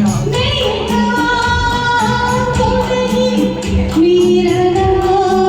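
Bollywood song played with musical accompaniment and a steady beat, with long held sung notes.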